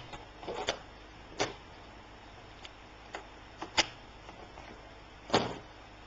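Scattered sharp clicks and knocks of small plastic and metal laptop parts being handled, as the memory module is taken out of its bay on the underside of a notebook. The loudest knock comes a little over five seconds in.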